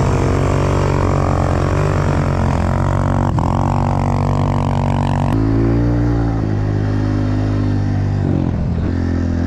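Pit bike engine running steadily, its pitch stepping to a new level about five seconds in and again near the end.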